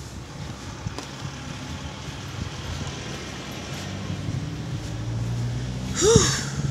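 A motor vehicle passing, its engine hum and road noise building over a few seconds. About six seconds in, a short loud cry that rises and falls in pitch cuts across it.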